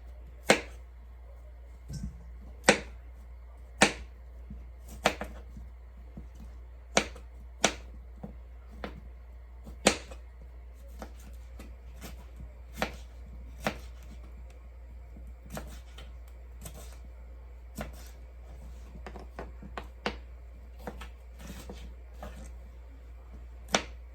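Kitchen knife knocking on a cutting board as vegetables are cut: sharp single knocks, irregularly spaced about one to two seconds apart, some much louder than others.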